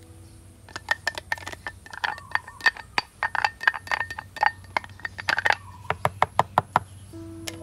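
Kitchen utensils clinking and knocking against cookware in quick, irregular strikes, several a second, some with a brief metallic ring. They start about a second in and stop near the end.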